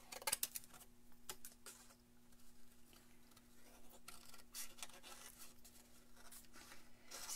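Scissors cutting through paper: faint, irregular snips with paper rustling between them, as a shape is cut out by hand.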